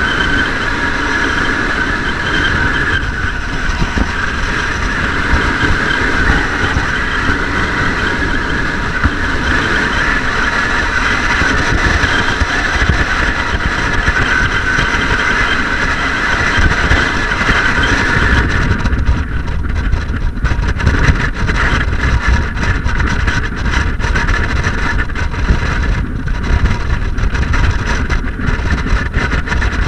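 Strong wind buffeting a body-worn camera's microphone: a loud, steady rumble that turns choppier, with many brief drop-outs, about two-thirds of the way through.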